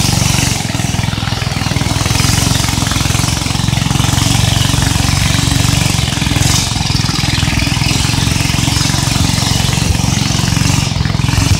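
Longboat's outboard motor running steadily as the wooden boat moves along the river, with water rushing along the hull.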